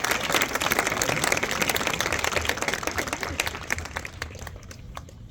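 Audience applause, many hands clapping, thinning out and dying away over a few seconds.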